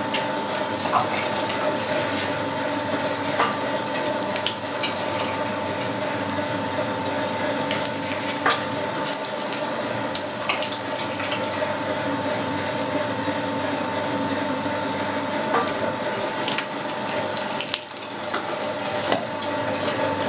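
Electric meat grinder running steadily with a constant motor hum, grinding pork chunks through the coarse 6 mm plate as they are pushed down the feed throat. Light clicks and knocks now and then.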